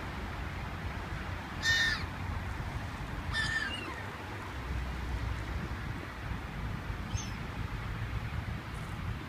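Two short, loud bird calls under two seconds apart, then a fainter one near the end, over a steady low rumble.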